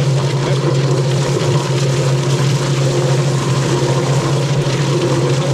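Drum-style chicken plucker running with a steady hum, its spinning rubber-fingered plate tumbling a scalded chicken to strip off the feathers.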